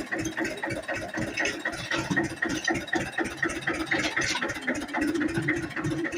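8 hp single-cylinder diesel engine of a water pump set running steadily with a rapid, even beat.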